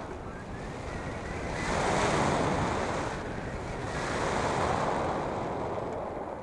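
Wind noise from the airflow past a hang glider in flight, swelling twice, about two seconds in and again around four to five seconds in.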